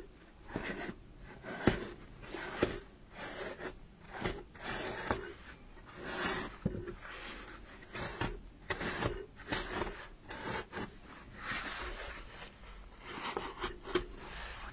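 Felt fabric being pressed and tucked into the slits of a polystyrene foam pumpkin with a pointed tool: irregular rubbing and scraping strokes, with a few short clicks.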